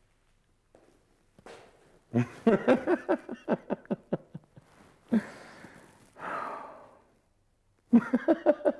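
A man breaking up with laughter. A run of quick, stuttering laughs starts about two seconds in, then comes a short burst, then a long breathy sigh, and another run of laughs near the end.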